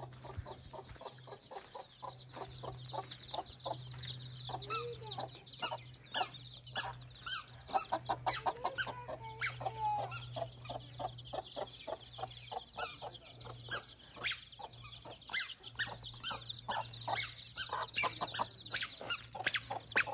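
Country chickens clucking, many short clucks and calls in an irregular stream, over a continuous high chirping.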